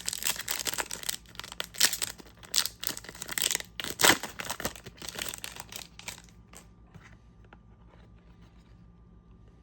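A trading card pack's wrapper being torn open and crinkled: a run of rustling tears, loudest about four seconds in, that stops after about six and a half seconds.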